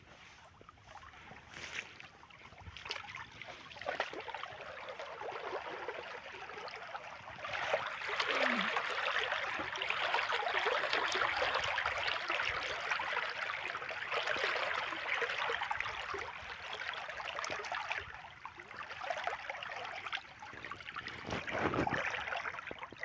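Muddy irrigation water rushing and splashing along an earthen field channel, flowing full into a wheat field. It grows louder about a third of the way in and eases off again near the end.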